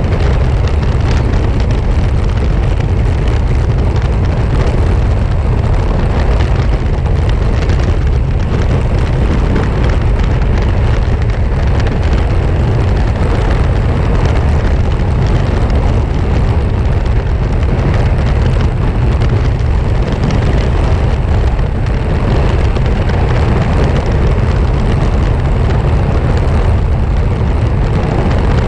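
Lexus NX350h on the move: a steady, loud low rumble of driving noise from underneath the car, with fine rattling ticks from the exhaust heat shield, the noise being chased down.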